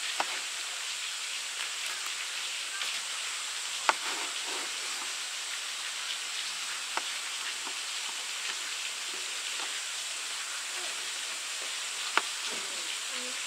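Opinel No. 12 knife cutting figs, its blade tapping the cutting board in four sharp knocks spread a few seconds apart, over a steady hiss.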